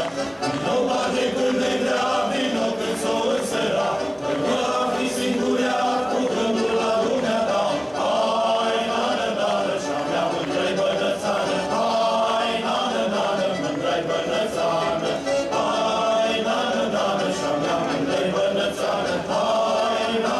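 A choir singing, many voices together in one continuous song.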